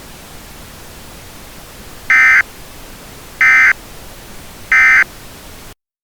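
Emergency Alert System end-of-message signal: three short, loud digital data bursts (SAME tones) about a second and a half apart, over a steady hiss like a weather-radio broadcast. The three bursts mark the close of the alert.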